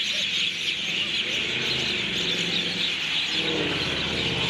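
Many common mynas calling at once in a tree, an evening roosting chorus: a loud, dense din of overlapping shrill chattering calls that keeps up without a break.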